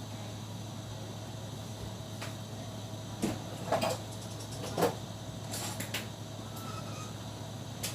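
Kitchen handling noises: a few knocks and clunks between about three and five seconds in, then a quick run of clicks about two seconds before the end, over a steady low hum.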